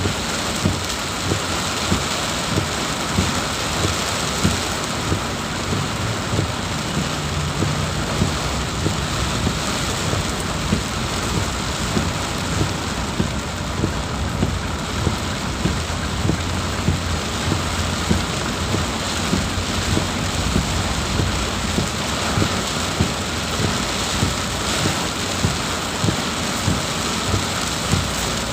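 Heavy rain pouring down in a steady, dense hiss, with sharp taps recurring about one and a half times a second.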